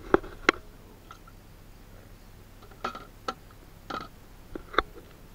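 Plastic tackle box being handled: about half a dozen sharp clicks and knocks of lids and latches at uneven intervals, two close together at the start and the last near the end.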